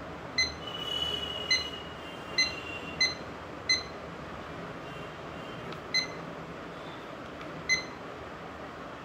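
IKEA KLOCKIS digital clock beeping as its display settings are changed: seven short, high beeps at uneven intervals, the last one near the end.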